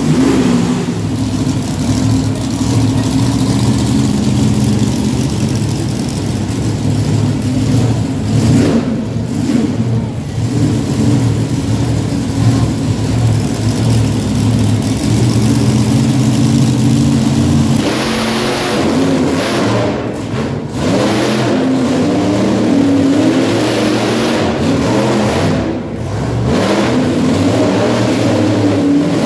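Monster truck engine running and revving, its pitch rising and falling. The sound turns noisier about two thirds of the way through.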